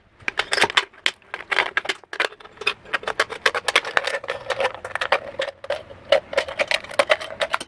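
Thin aluminium from a drink can being cut into shims with snips, a rapid irregular run of sharp clicks and crinkles.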